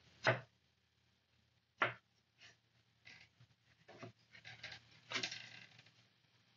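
Pallet-wood trim pieces being knocked and slid into place on the top edge of a wooden planter box: two sharp wooden knocks about a second and a half apart, then lighter taps and a short scrape of wood on wood near the end.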